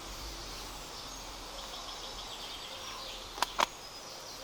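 Steady outdoor background with a songbird giving a quick high trill about two seconds in, then two sharp clicks close together near the end.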